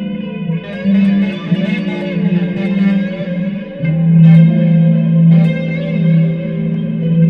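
Electric guitar, a Dean Avalanche C7 with Seymour Duncan pickups, played through a Line 6 Spider Jam amp with effects: sustained, ringing notes, with a lower note coming in about four seconds in and held.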